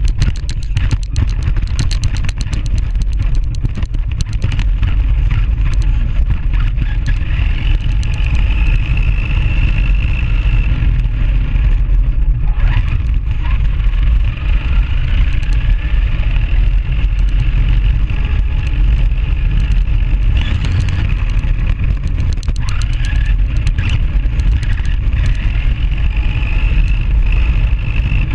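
Tamiya Grasshopper RC buggy driving with the camera riding on it. Its electric motor whines, rising and falling in pitch, over a heavy rumble and constant rattling from the chassis and tyres on the ground.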